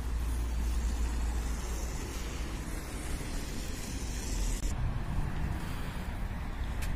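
Road traffic on a city street: cars driving past, heard as a steady low rumble with tyre hiss. The higher hiss drops away about five seconds in.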